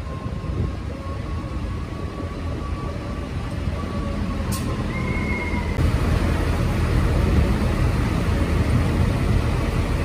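Diesel farm tractor engines running, a deep steady rumble that gets louder about six seconds in.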